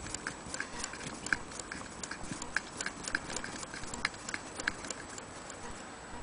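Antique Willcox & Gibbs chain-stitch sewing machine running slowly, its mechanism clicking evenly about three times a second as it sews a scrap of cloth.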